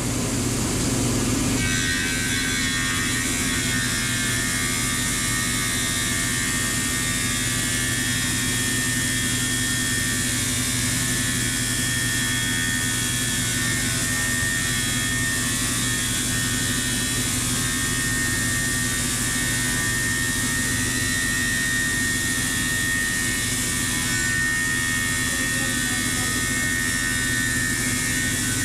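Grizzly thickness planer running steadily, with a higher whine from about two seconds in until near the end as an oak board feeds through the cutterhead.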